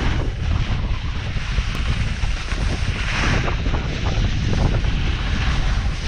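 Steady wind noise on the microphone of a pole-mounted action camera while snowboarding downhill, with the hiss of the snowboard scraping over hard snow swelling about halfway through and again near the end.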